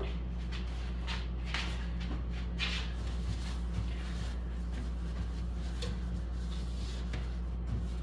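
A towel wiping down a sprayed glass refrigerator shelf in a series of soft, irregular swishing strokes, over a steady low hum.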